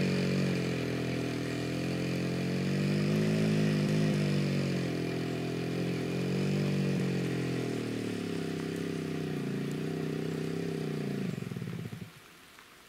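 Motorcycle engine labouring under load in deep mud, its revs rising and falling a few times, then stalling near the end as the bike gives out on the climb.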